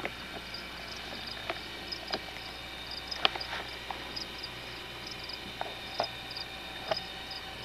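Evening chorus of chirping insects, short high chirps repeating about three times a second, with a few sharp clicks and taps scattered through it, the loudest a little over three seconds in.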